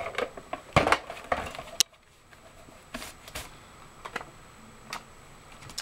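Scotch ATG adhesive transfer tape gun run across the back of a paper cutout, clicking as it lays down tape, with a sharp click about two seconds in; a few soft clicks and taps follow.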